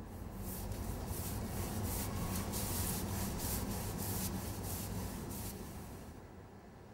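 Paintbrush scrubbing black paint onto a wall in quick repeated strokes, two or three a second, stopping about a second before the end.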